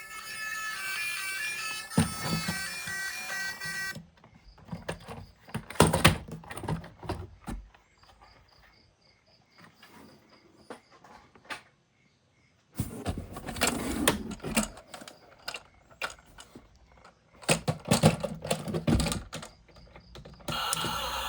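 Background music that cuts off about four seconds in, followed by irregular clicks, knocks and rattles of plastic toy vehicles and their packaging being handled. The music comes back near the end.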